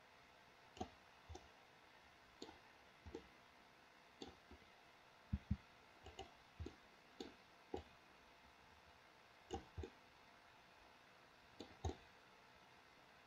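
Computer mouse buttons clicking at an irregular pace, often in quick pairs, against near silence; the loudest double click is about five seconds in.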